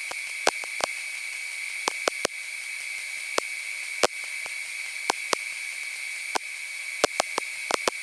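Hobart Handler 135 MIG welder arc on thin sheet steel: a steady hiss broken by many irregular sharp pops and crackles of spatter. The welder is laying short tacks to build up weld across a rusted-through hole.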